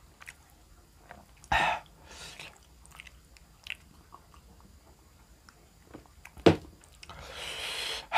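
Close-miked mouth sounds of a person eating: bites and chewing with small wet clicks, a louder bite about a second and a half in and a sharp click past six seconds. Near the end a longer hissing noise swells up.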